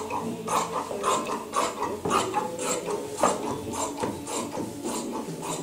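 Large tailor's shears cutting through dark suit cloth on a cutting table, in steady, regular snips about twice a second.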